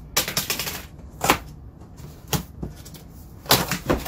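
A cardboard monitor shipping box being opened: a short ripping scrape as the packing tape is cut, then several sharp cardboard knocks and taps as the flaps and tabs are handled, with a cluster of them near the end.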